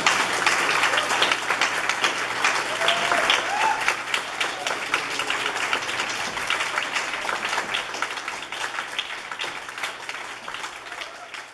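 Audience applauding, loud at first and fading away gradually toward the end.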